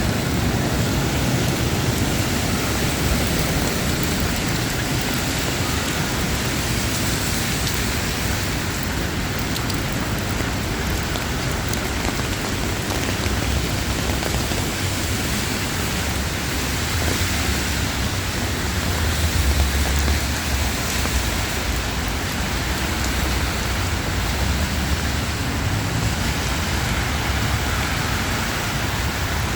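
Steady rain falling, an even hiss of drops on the surfaces around. A low rumble swells briefly about two-thirds of the way through.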